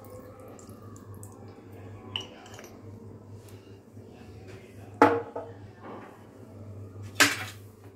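Kitchen clinks and knocks as a glass vinegar bottle and small spoon are handled over a steel bowl on a stone counter, with two sharp knocks about five and seven seconds in, over a steady low hum.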